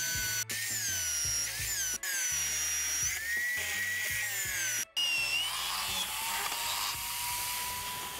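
Electric drill mounted in a wooden drill-press stand boring into a hardwood block, its motor whine dipping and recovering as the bit bites, over background music. The sound breaks off briefly three times, and in the last few seconds a steadier tone carries on under the music.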